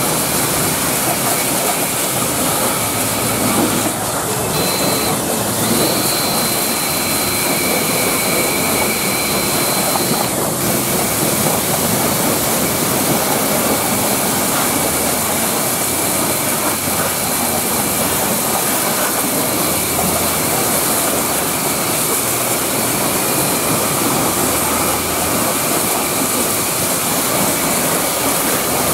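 High-pressure washer jet spraying water onto a truck's metal guard rails, fuel tank and tyres: a loud, steady hiss of spray with a faint high whine.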